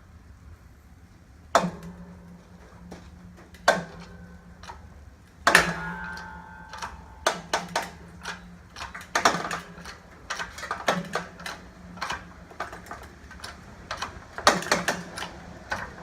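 Wheel bearing hub and wooden press blocks under load in a shop press, giving off irregular sharp cracks and pops, some with a brief metallic ring. They come sparsely at first and grow more frequent in the second half, over a steady low hum.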